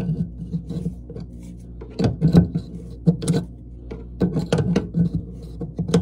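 A metal wrench clicking and scraping in short bursts against the brass compression nut of a toilet shutoff valve as the supply-line connection is tightened, over a steady low hum.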